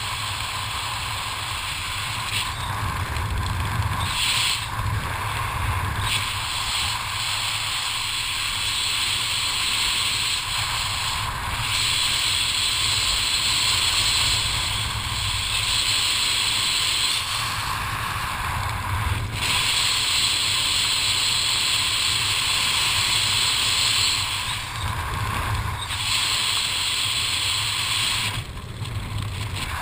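Steady wind rushing over a helmet camera's microphone during a descent under an open parachute canopy, with uneven low buffeting.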